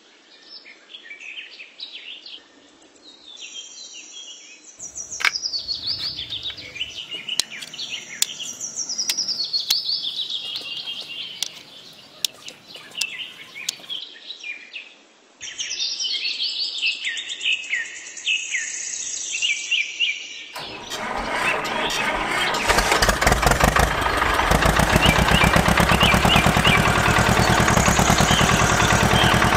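Birds chirping and calling. About two-thirds of the way in a tractor engine cuts in and runs steadily, growing louder over a couple of seconds before holding level.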